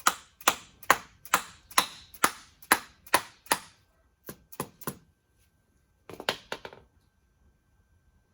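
Hammer tapping a universal joint bearing cup into a driveshaft yoke: nine sharp, even strikes about two a second, then three lighter taps, then a quick cluster of taps about six seconds in.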